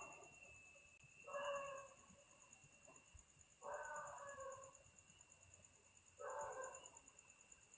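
A sleeping girl snoring: three short snores at an even breathing rhythm, about two and a half seconds apart.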